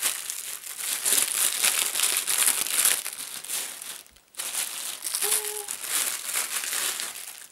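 Plastic packaging crinkling and rustling as baby shoes are pulled from a plastic postal mailer and taken out of their clear plastic bag, with a short pause about four seconds in.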